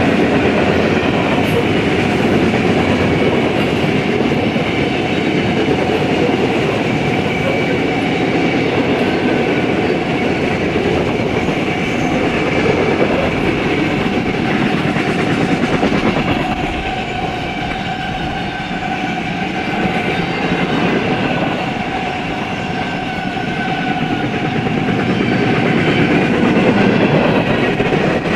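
Freight cars of a mixed freight train rolling past close by: steel wheels clacking over the rails under boxcars, tank cars and covered hoppers, in a steady rumble that eases a little about two-thirds of the way through and then builds again.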